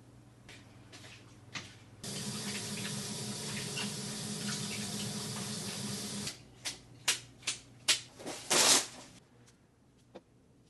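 Kitchen tap running for about four seconds, then shut off, followed by a quick series of short sharp sounds, the last one longer and the loudest.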